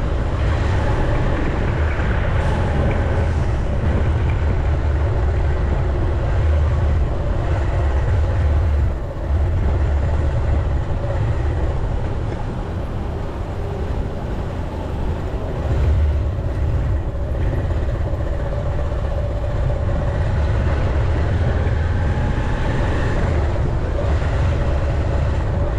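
Continuous running noise of a moving road vehicle, with heavy low rumble, likely wind and engine, on a GoPro microphone. It dips briefly about nine seconds in and swells around sixteen seconds.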